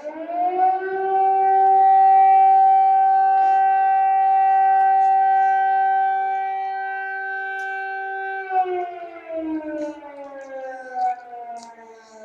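Air raid siren wailing in several tones at once: the pitch rises in the first second, holds steady for about seven seconds, then slowly falls away near the end. It is an air raid alert.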